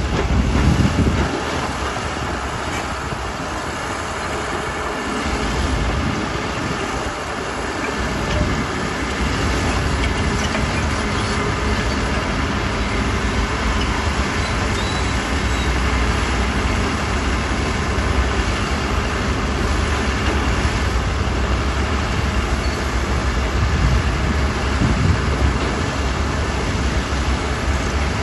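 Heavy diesel earthmoving machinery running, a steady low rumble that eases for a few seconds early on and then holds.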